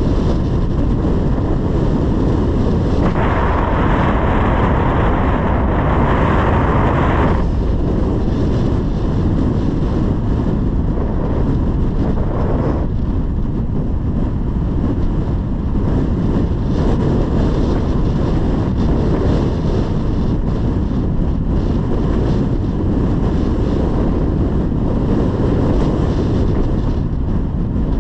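Steady low rumble of wind buffeting the microphone, mixed with road traffic noise. A louder hiss rises from about three seconds in and drops away near seven seconds.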